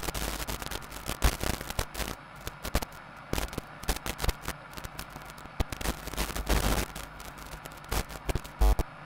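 A large fire crackling and popping: dense, irregular sharp cracks with a few louder bangs.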